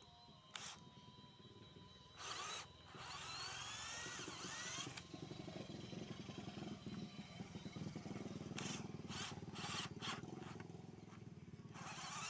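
Electric drill motor running with a low buzzing hum, with several short bursts of hissy scraping noise over it.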